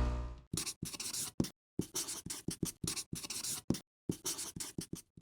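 A quick run of about fifteen short scratchy strokes, separated by brief silent gaps.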